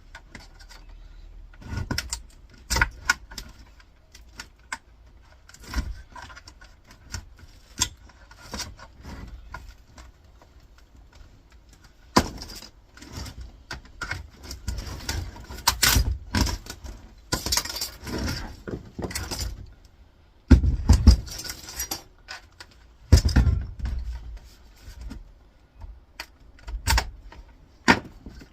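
Scattered clicks, knocks and light metallic clinks as a flat-screen monitor's plastic housing is worked apart by hand and its aluminium trim strips are taken off, with busier clusters of knocks and rattles in the second half.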